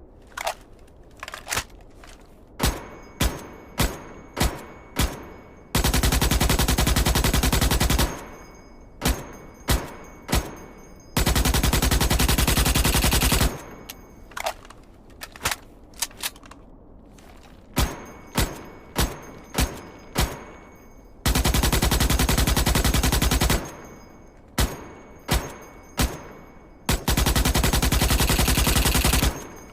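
Morita MK1 rifle sound effect: single shots spaced about half a second apart, alternating with four long bursts of rapid automatic fire, each lasting two to three seconds.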